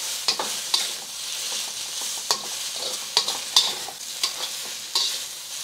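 Ginger and green onion sizzling in hot oil in a wok, stirred with a spatula that scrapes and knocks against the wok at irregular moments.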